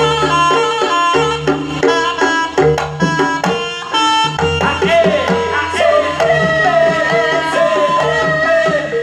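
Live Javanese jaranan ensemble music: hand-played kendang drums and pitched gong-chime notes in a fast repeating pattern, with deep gong tones underneath. About halfway through, a wavering high melody with bending pitch comes in over the rhythm.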